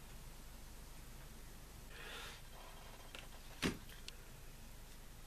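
Quiet handling of lab glassware over a low steady hum: a soft rustle about two seconds in, then a single sharp clink as a glass petri dish holding a filter paper is set down on the table, with a few lighter ticks around it.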